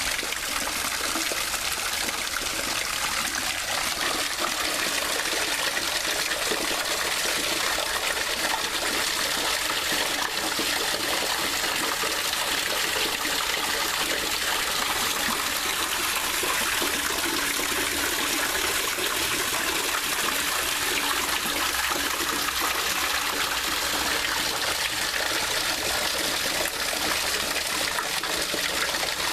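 Running water flowing steadily with a continuous trickling splash, as of a stream or small cascade.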